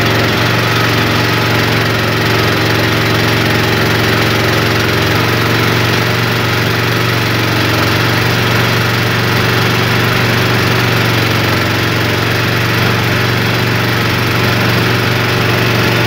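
Small boat's engine running steadily at an even speed, a constant loud hum.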